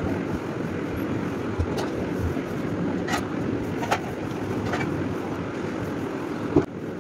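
Electric clothes iron pushed back and forth over damp cloth: a steady rushing scrape with a few light knocks as the iron is shifted and set down, the rushing falling away just after the last knock near the end.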